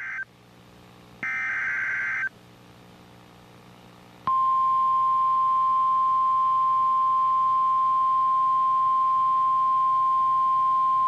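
Emergency alert data bursts, two buzzy digital chirps about a second long each (the SAME header that opens a NOAA Weather Radio warning), followed about four seconds in by the steady single-pitch warning alarm tone.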